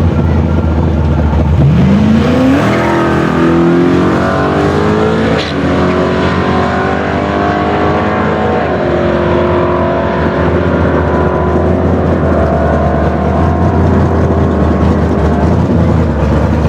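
Holden VP Commodore accelerating flat out from a standstill down a drag strip, engine pitch climbing and then dropping as the automatic gearbox upshifts about three times, then holding steady at speed over a constant low drone.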